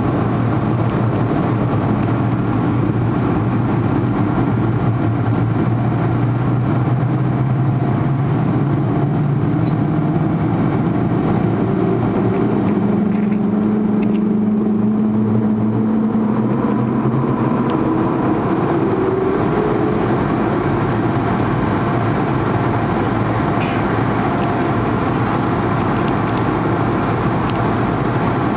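Airliner cabin noise during the climb after take-off: the steady rush of jet engines and airflow. Around the middle the low engine tones shift and glide upward in pitch.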